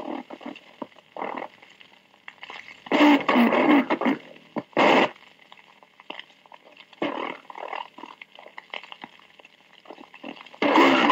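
Dallas Police Department channel 2 Dictabelt recording from 1963, played back at half speed: radio transmissions with the voices slowed and lowered in pitch so the words are not understood, coming in short bursts, the loudest near the end. Radio hiss and faint steady tones of the channel run underneath between the transmissions.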